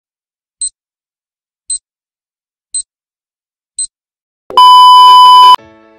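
Intro sound effect: four short, high clock-like ticks about a second apart, then a loud alarm-like ring lasting about a second that cuts off suddenly.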